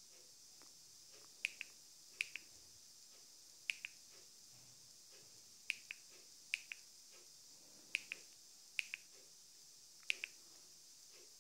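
Remote-control button clicked eight times at uneven intervals, each a sharp double click (press, then a softer release), as keys are picked one by one on a TV's on-screen keyboard. A faint steady hiss runs underneath.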